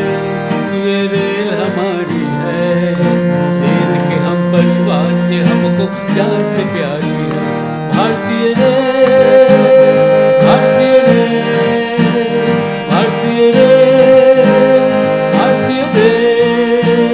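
Instrumental music of a Hindi song's interlude: plucked strings under long, held melody notes.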